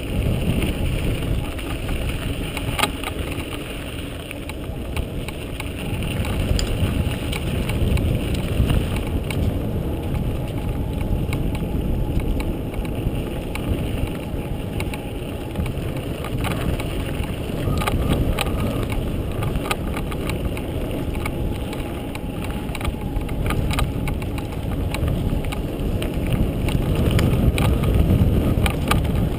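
Wind buffeting a GoPro's microphone and mountain bike tyres running over a dirt trail at downhill speed, a steady rumble with frequent small clicks and rattles from the bike. It grows a little louder near the end.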